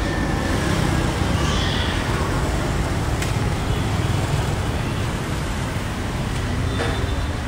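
Steady road traffic noise, a low even rumble of passing vehicles, with a single short click about three seconds in.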